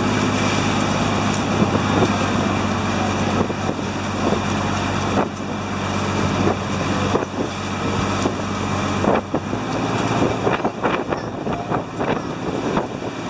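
Pump boat's engine running steadily, with wind on the microphone and water rushing along the hull. A little past two-thirds of the way through, the engine drone drops away as the boat throttles back to come alongside the wharf, leaving water sloshing and a few scattered knocks.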